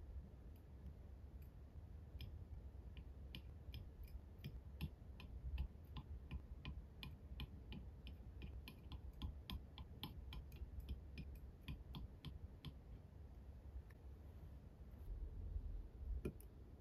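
Light clicks of metal tweezers setting short cut wire spokes down on a flat plate, about three a second. The clicks thin out after about twelve seconds, with one more near the end.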